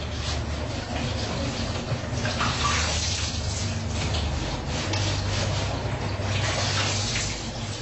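Water running and splashing as a person washes for the major ablution (ghusl), with the flow swelling and easing.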